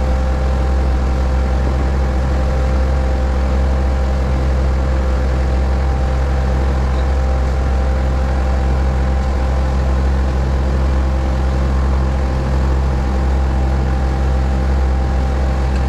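Outrigger fishing boat's engine running steadily while the boat is under way: a constant deep drone with a faint steady whine above it.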